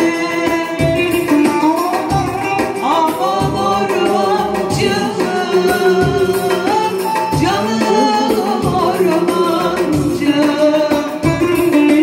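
A woman singing a Turkish folk halay song through a microphone and PA, backed by electronic keyboards and a steady drum beat.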